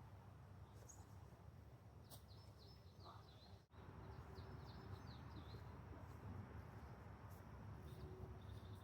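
Faint outdoor ambience: a low wind rumble on the microphone, with a small bird chirping in quick series of short notes a couple of seconds in and again near the end.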